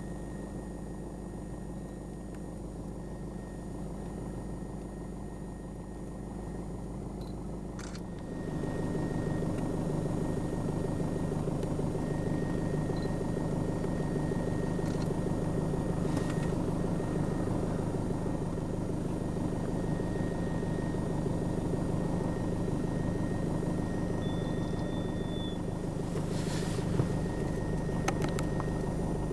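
Off-road 4x4 vehicle's engine running steadily, stepping up louder about eight seconds in.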